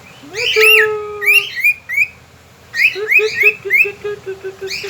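Pet cockatiel whistling and chirping: rising whistled glides early on, then a quick run of short repeated notes, about six a second.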